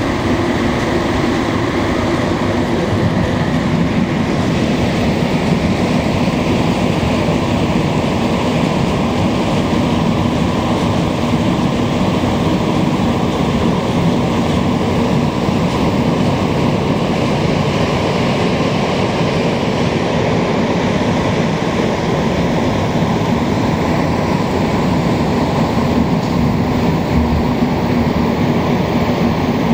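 Rubber-tyred Montreal metro train running through the tunnel, heard from inside the car as a loud, steady rumble of tyres and motors.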